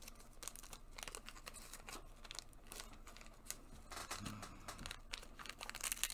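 Small see-through plastic bag crinkling and rustling as a cannabis bud is pulled out of it by hand: faint irregular crackles, with a louder flurry near the end.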